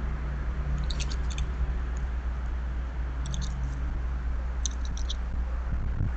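A steady low hum, with three brief clusters of high chirps about one, three and five seconds in.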